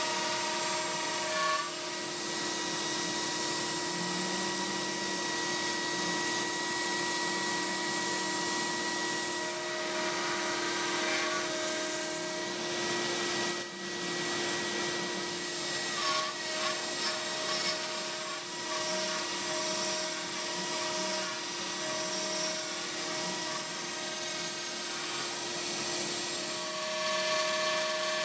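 CNC router spindle running steadily with a whine as the bit cuts into a cedar sign, over the rush of the dust collector drawing through the dust shoe. A second tone comes and goes repeatedly.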